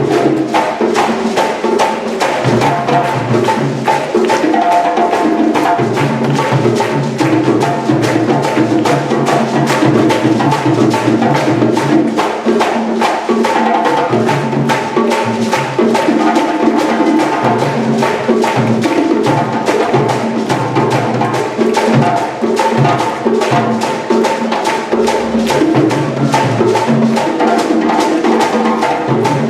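Percussion music: drums and wood-block-like strikes playing a fast, dense, steady rhythm over sustained pitched tones.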